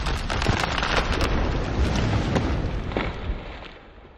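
Animated-logo intro sound effect: a low rumble under crackling and scattered sharp clicks, fading away over the last second or so.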